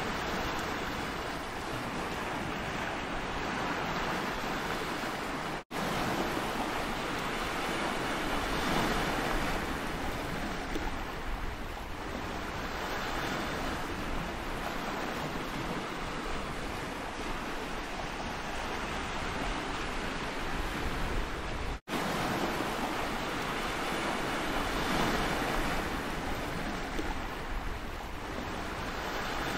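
Sea waves washing steadily, swelling and easing every few seconds. The sound drops out for an instant twice.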